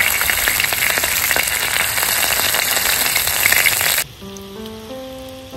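Peach clams and scallops sizzling as they cook, a dense crackle full of fine pops. It cuts off suddenly about four seconds in, giving way to soft background music.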